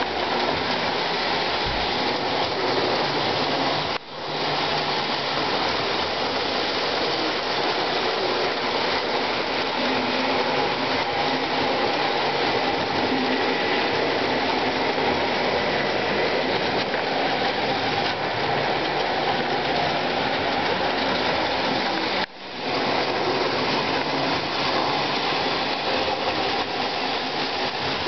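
O-scale model trains, a Lionel Wabash passenger set and an MTH Reading switcher, running on three-rail track: a steady rolling rumble of wheels and motors. It drops out briefly twice.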